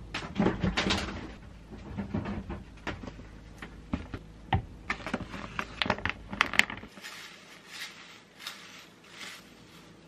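A spatula scrapes and clatters on a ceramic plate as a pancake is slid into a bowl. A string of plastic crinkles and clicks follows as a resealable bag is handled and opened, loudest a little after six seconds in. Near the end there is a soft rustling of dried bonito flakes being picked from the bag.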